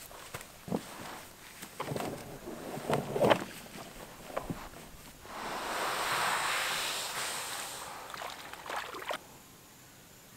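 Gear being loaded into an Old Town canoe: a series of knocks and thumps against the hull, the loudest about three seconds in. Then a long scraping swoosh as the hull is pushed over the sand into the water, from about five to eight seconds in, followed by a few knocks as the paddler climbs aboard.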